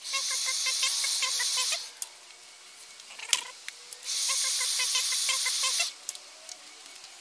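Two bursts of steady high hiss, each just under two seconds and about two seconds apart. Each starts and stops abruptly and holds a few faint ticks.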